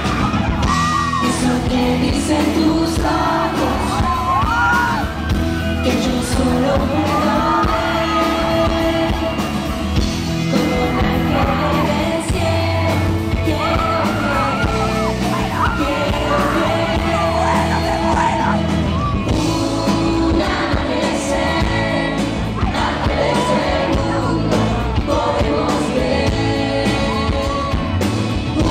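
Live pop song played by a band, with singing voices and shouts and yells from the audience, recorded from the crowd.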